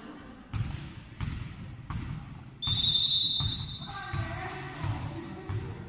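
A volleyball is bounced again and again on a hardwood sports-hall floor, about one bounce every half second or so. A referee's whistle sounds once, a single high blast about a second long, roughly two and a half seconds in, signalling the serve. Players' voices call out briefly after the whistle.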